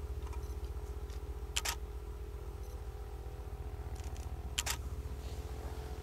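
Single-lens reflex camera shutter firing twice, each a quick double click, about three seconds apart, over a steady low rumble.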